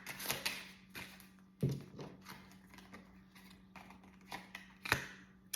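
Tarot cards being handled: scattered light clicks and taps as cards are shuffled and laid down, two of them sharper, about a second and a half in and near the end. A faint steady hum runs underneath.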